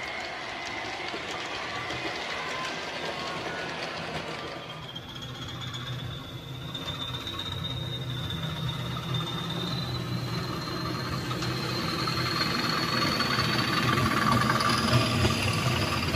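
Model train running on the layout: a thin whine rising slowly in pitch as it gathers speed, over a rumble of wheels on the track that grows louder as the train approaches near the end.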